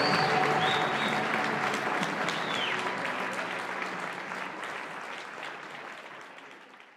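Audience applauding, the clapping fading out steadily to nothing by the end.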